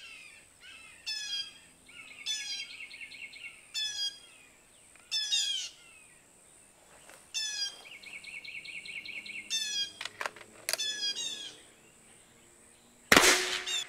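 Red-shouldered hawk calling, a repeated short down-slurred call, while another bird gives a fast even trill twice. A single loud sharp bang near the end.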